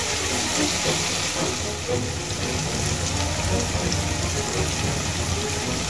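Diced potatoes and spice masala sizzling steadily in oil in a kadai, with a steady low hum underneath.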